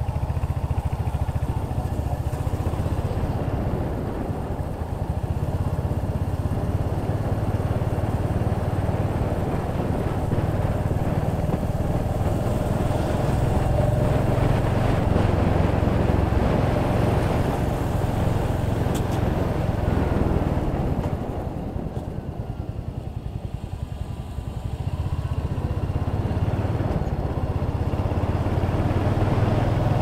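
Royal Enfield Hunter 350's single-cylinder engine running on the move, heard close from the riding position; it eases off for a few seconds about two-thirds of the way through, then picks up again.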